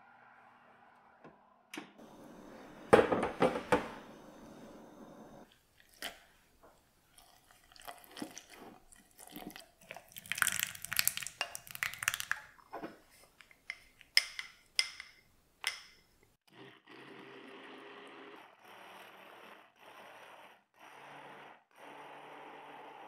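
Kitchen handling clatter and knocks, then liquid poured into a plastic measuring jug. In the last few seconds an immersion blender runs in short bursts in the jug, blending the mix into ganache.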